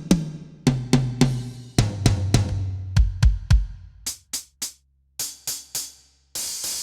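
Turbo Electronic TDX-16 electronic drum kit played on its 'Eletrônico ao Vivo' preset: a fill around the toms, stepping lower in pitch, with bass drum hits, then a few short sharp hits and a cymbal crash near the end.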